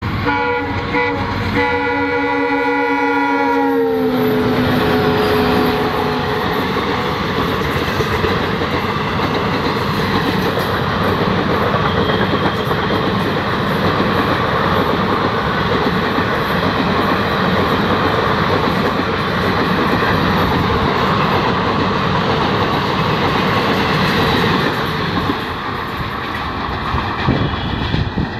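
A train horn blows a chord of several tones that drops in pitch about four seconds in as the locomotive passes. It is followed by the steady rush and wheel clatter of a fast train going by, easing a little near the end.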